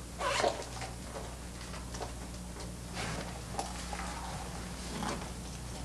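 Faint scattered rustles and soft knocks over a steady low electrical hum.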